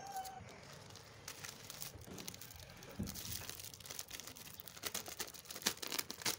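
Plastic snack packet crinkling as it is handled, a run of small crackles that grows busier from about halfway through.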